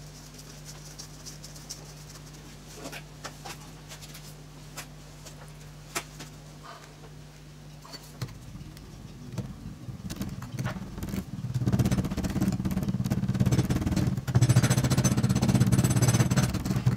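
Green sand shovelled into a wooden moulding flask, with soft scattered ticks over a steady low hum. About nine seconds in, a power rammer starts up and hammers rapidly and loudly, packing the sand around the patterns.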